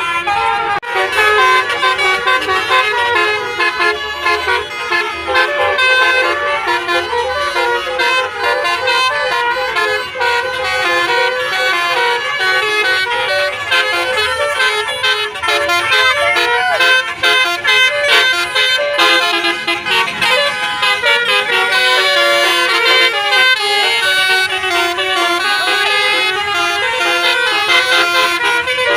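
Indonesian bus 'telolet' musical air horn playing a loud, unbroken run of multi-tone melodies, the notes changing quickly.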